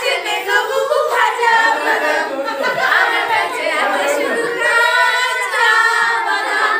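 A group of women and girls singing together without accompaniment, several voices at once.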